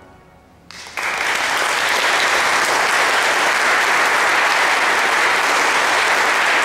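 The last pipe-organ chord fades away, then an audience starts applauding about a second in and keeps clapping steadily.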